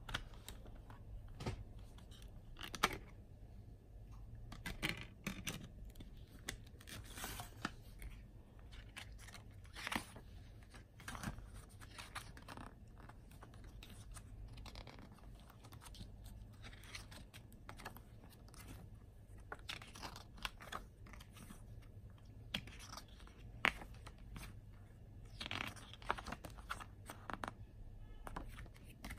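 Handling noises from a plastic CD jewel case and its paper booklet: scattered sharp clicks of the case and rustles of pages being turned, over a low steady hum.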